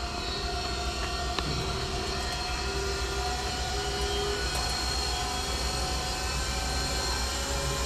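LNG filling-station dispenser running as liquefied natural gas is pumped into a truck's tank: a steady hum and hiss with a low rumble underneath and a few faint steady tones.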